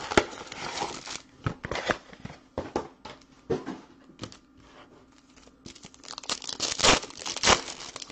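Plastic wrapping and foil baseball-card pack wrappers crinkling and tearing as they are handled, in irregular crackly bursts that are busiest near the end.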